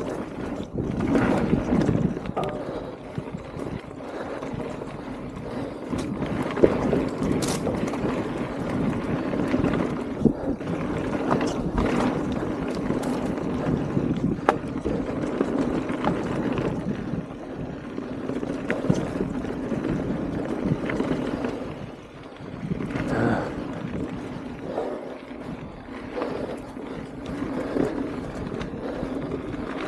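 Mountain bike riding fast down a dirt singletrack trail: a steady rush of tyre noise and wind on the microphone, with scattered sharp knocks and rattles.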